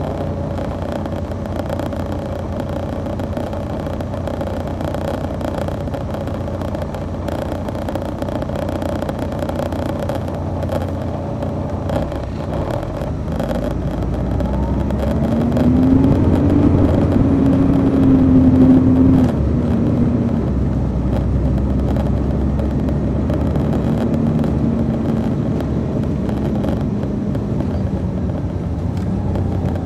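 A 2002 MCI D4000 coach heard from on board, its Detroit Diesel Series 60 diesel engine running steadily. About halfway through the engine climbs in pitch and gets louder as the bus accelerates, then drops back abruptly, as at an upshift of its Allison automatic transmission, and runs on steadily.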